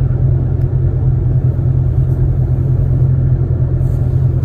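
Car idling while parked, a steady low rumble heard from inside the cabin.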